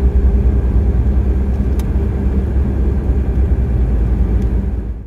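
Steady low rumble of a car driving, road and engine noise with a faint hum, fading out near the end.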